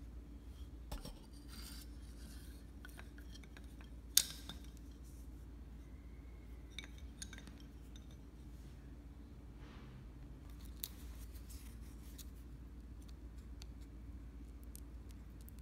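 Scattered small clicks, ticks and light scraping of hand work with tools and parts, with one sharp click about four seconds in, over a steady low hum.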